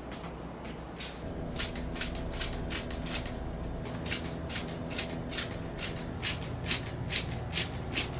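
Trigger spray bottle squirted again and again in quick short hisses, about three a second, wetting a copper cup base, over a steady low hum.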